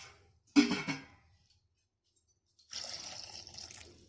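A short clunk about half a second in, then water poured into a pressure cooker for over a second near the end.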